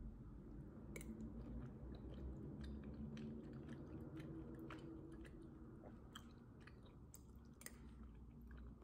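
Quiet close-up chewing of soft soup dumpling dough, with scattered small clicks and mouth sounds.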